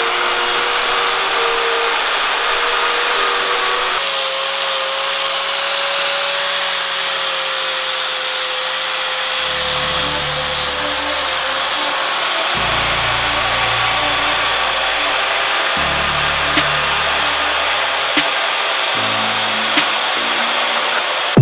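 A corded angle grinder cutting steel stock, a steady high whine with hiss. Background music with a low bass line joins it about nine seconds in.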